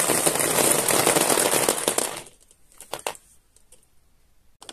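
About fifty metal marbles clattering at full flow through a 3D-printed plastic marble-run divider and into a Lego tray, a dense rattle of many rapid clicks that stops suddenly about two seconds in. A few lone clicks of stragglers follow.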